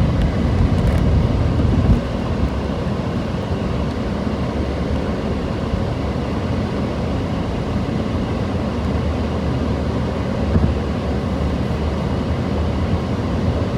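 Steady low rumble of strong wind buffeting a moving car, with road noise, heard from inside the cabin. It is a little louder for the first two seconds.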